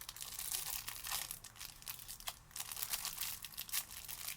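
Light crinkling and clicking of small parts and wrapping being handled, a dense patter of small clicks with no steady tone.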